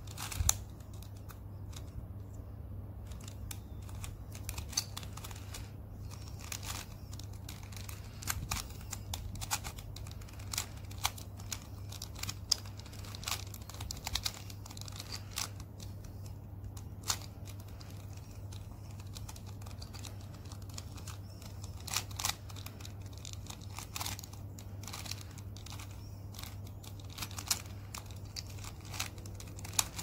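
A plastic twisty puzzle cube being turned by hand: irregular clicks and clacks as its pieces snap through their turns, a few of them sharper and louder. A steady low hum runs underneath.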